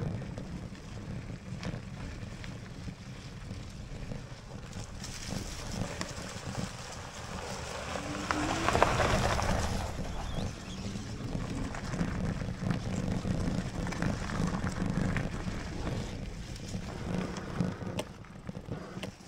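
Lectric XPeak fat-tyre electric mountain bike being ridden along a dirt trail: a steady rumble with wind on the microphone, louder for a couple of seconds around the middle.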